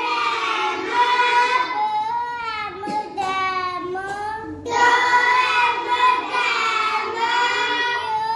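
A young girl's voice reading aloud from a picture phonics book in a high, drawn-out sing-song chant, with a short pause a little past halfway.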